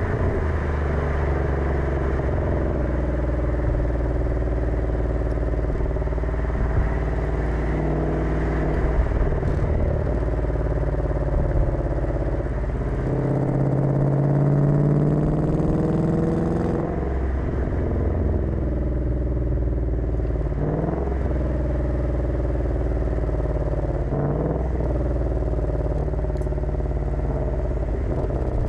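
5.0-litre V8 of a 2020 Ford Mustang heard from inside the cabin, its exhaust set to sport mode. It runs steadily while driving, then its note climbs and swells for a few seconds around the middle as it pulls harder. Later there are a couple of brief rises in pitch before it settles back.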